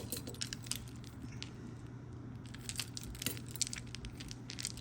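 Loose costume jewelry (chains, beads and metal pieces) clinking and jangling lightly as it is handled and sorted, a scattering of small clicks, over a steady low hum.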